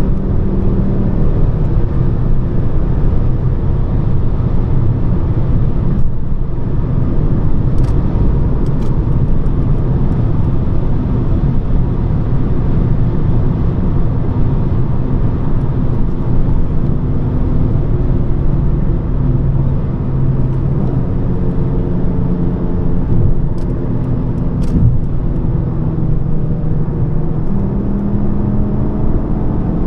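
Volvo S40 II's 2.4-litre five-cylinder petrol engine and tyre and road noise heard from inside the cabin while cruising at highway speed: a steady hum with the engine's tones shifting a little, stepping up near the end.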